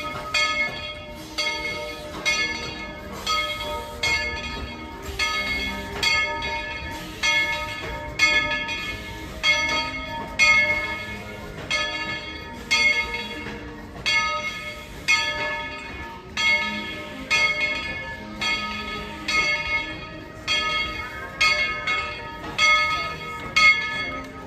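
Steam locomotive bell ringing steadily, about one stroke a second, each stroke ringing on and fading before the next.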